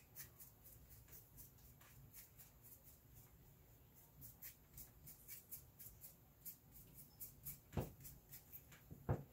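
Faint scratching of a flat paintbrush scrubbing paint onto a painting panel in short crosshatch strokes, several soft scrapes a second, with two louder knocks near the end.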